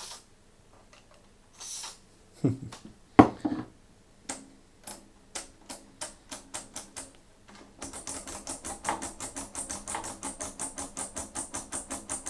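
Oscilloscope front-panel switches clicking as they are worked back and forth to spread contact cleaner over dirty switch contacts: about three clicks a second, then fast clicking about six a second in the second half. Near the start, a couple of short hisses and two loud knocks.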